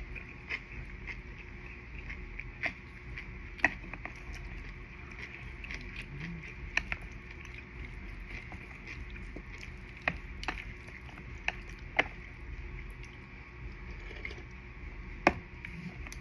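Close-up eating sounds of a meal of soba noodles and vegetables: about nine scattered sharp clicks and taps over a steady background hum.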